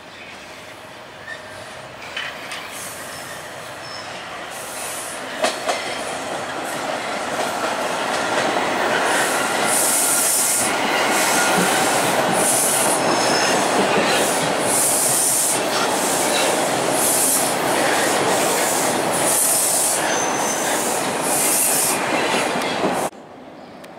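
TTC T-1 subway train approaching and passing close by on open track. It grows louder as it nears and then runs loud and steady, with repeated high-pitched bursts of wheel squeal and a few sharp clacks over rail joints early on. It cuts off suddenly near the end.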